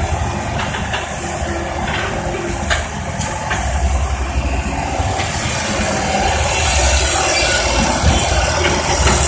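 Excavator's diesel engine running with a steady low rumble and a few light knocks, growing louder about six seconds in.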